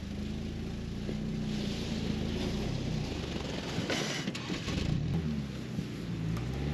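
Ford Bronco engine revving up and down as the truck works to back out of deep snow, with a short hiss about four seconds in.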